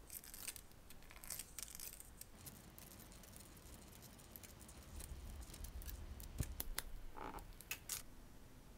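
Faint handling noise of a watch mainspring and barrel from a Seiko 6309 movement: small clicks and crinkly scratching at irregular moments. A low rumble comes around the middle, and a cluster of sharper clicks and scrapes comes near the end.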